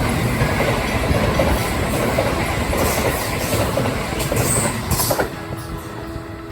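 Kintetsu train running through the station at speed: a loud rumble of wheels on rail with a few sharp clacks, falling away suddenly after about five seconds as the train clears.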